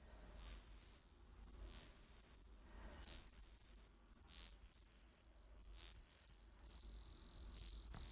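High-pitched pure sine tone from a phone frequency generator app, played through the phone's speaker, falling slowly and steadily in pitch and wavering a little in loudness.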